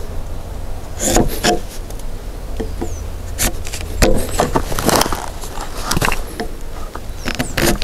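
Hand chisel paring wood from the joint of a timber beam: a series of irregular short cracking and scraping cuts as the blade is pushed through the grain.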